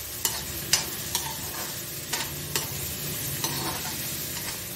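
Chopped onion, green chilli and garlic sizzling in hot oil in a metal kadhai while a perforated metal spatula stirs them, its strokes giving several sharp clicks and scrapes against the pan.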